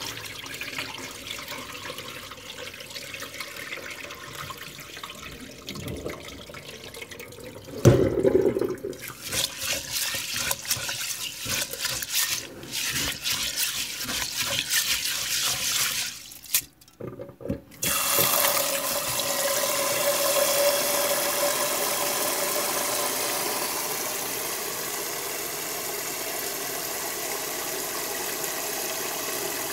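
Sticky rice being washed by hand in a rice cooker's inner pot in a sink: a sharp knock about a quarter of the way in, then grains swished and rubbed in the water with rapid, irregular splashing and scraping. After a short pause, tap water runs steadily onto the rice in the pot.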